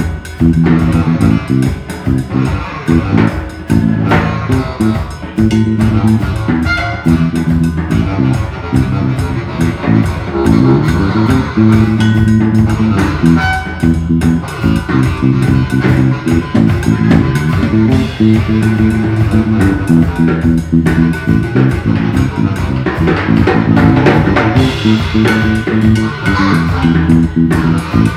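A live band playing an instrumental piece: a repeating low bass-and-guitar riff over a steadily played drum kit, with saxophone above.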